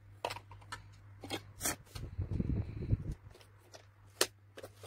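Scattered clicks and taps of makeup items being picked up and handled, with a low rumble about two seconds in, over a steady low hum.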